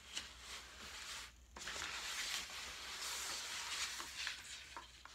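Nylon and mesh fabric of a Graco Pack 'n Play newborn bassinet rustling as it is handled and lifted, louder from about a second and a half in, with a few light clicks near the end.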